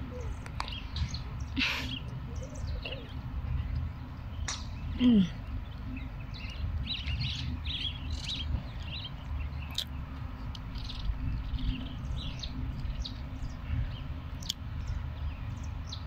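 A person chewing a beef burger close to the microphone, with small mouth clicks and smacks and a brief falling hum about five seconds in. Birds chirp in the background throughout.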